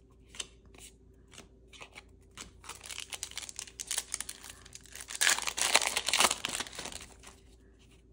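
Crinkling and rustling of a trading-card pack and its cards being handled, with a few light clicks at first. The rustling builds after a couple of seconds, is loudest a little past the middle, then fades.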